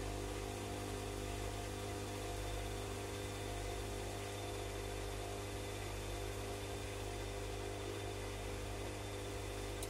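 Bosch Classixx 6 front-loading washing machine on an intermediate spin: the drum turning at a steady speed, with a constant motor hum and a faint high whine.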